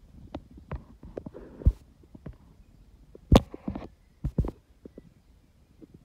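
Irregular soft thumps and clicks of handling noise, with two sharp knocks, one a little before two seconds in and a louder one just past halfway, then a quick double knock.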